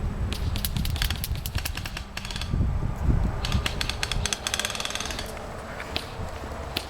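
Airsoft guns firing two rapid bursts of sharp clicks, each lasting about two seconds, with low rumbling wind on the microphone in the first half.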